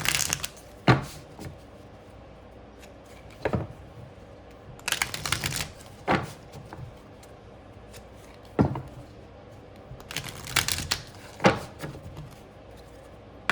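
A deck of oracle cards being shuffled by hand: short clusters of card riffles and sharp taps and snaps, with quieter gaps between them.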